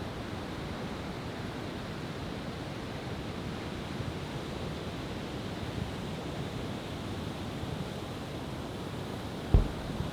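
Steady wash of outdoor noise with one sharp low boom near the end: a firework shell going off.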